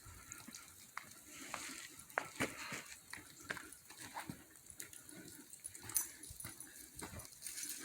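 A dog's faint sounds, among scattered small clicks and taps.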